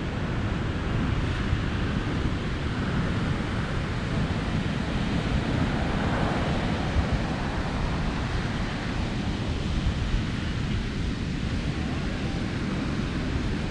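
Wind buffeting the microphone over the steady wash of ocean surf, a continuous rushing noise with a heavy low rumble.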